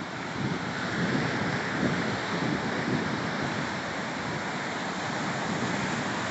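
Steady rush of sea surf and wind, a continuous noise with no distinct breaks or hits.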